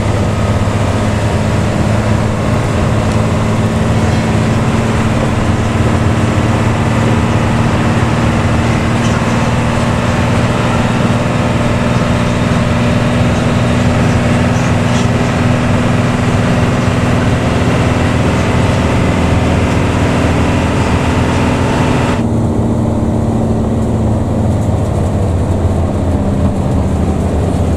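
Luragung Jaya bus engine running with its aftermarket 'ngorok' (snoring) exhaust, a loud, steady low drone. About 22 seconds in the higher sounds cut off suddenly, and near the end the engine's pitch drops slightly.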